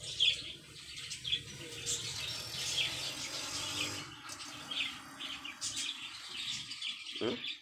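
Small birds chirping over and over in short, high calls, with a steady low hum underneath.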